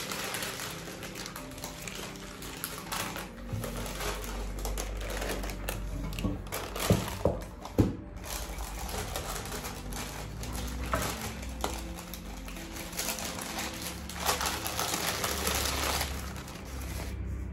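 Baking paper rustling and crinkling as it is peeled off rolled pastry dough and handled over a metal tart pan, with a few sharp knocks about seven to eight seconds in.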